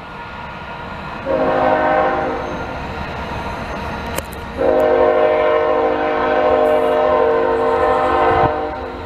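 Diesel locomotive's air horn sounding a chord in two blasts: a first one about a second in, lasting about three seconds, then a louder, longer one from about halfway to near the end, over the steady rumble of the freight train.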